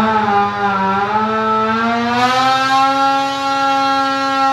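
Polaris Axys 850 snowmobile's two-stroke twin engine, breathing through a Bikeman Powder Lite muffler, running at wide-open throttle on a dyno in a long pull under load. Its high, buzzing pitch sags slightly, climbs about two seconds in, then holds steady at high revs.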